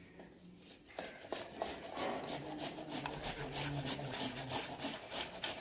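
Carrots being rubbed against a hand grater in repeated rasping strokes, about three a second, starting about a second in.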